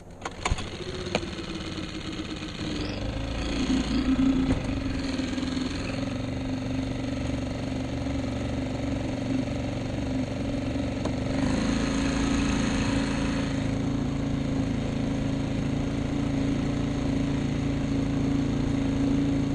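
Small boat motor starting after a few clicks, its pitch sliding down and settling, then running steadily under way. A brief wash of hiss joins it about twelve seconds in.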